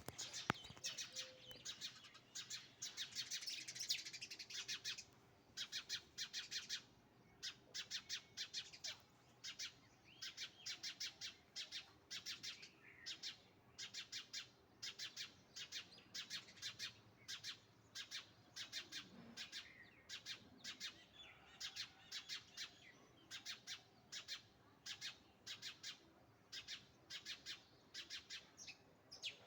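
Small birds chirping: short runs of rapid, high chirps repeated about once a second.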